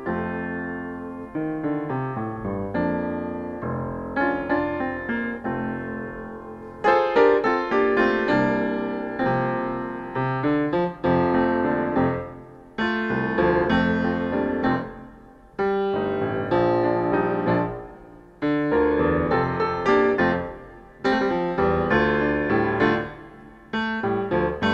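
Solo grand piano playing, chords and melody struck and ringing out, with each phrase dying away before the next; the playing grows louder about seven seconds in.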